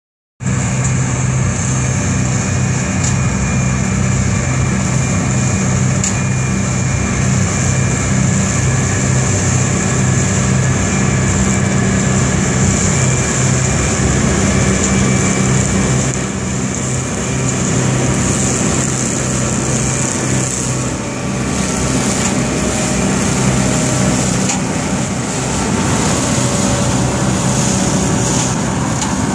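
Tractor engine running under load while driving an OMARV TER 190 Extra flail mower-collector cutting and gathering verge grass: a steady engine drone with a constant high whine above it.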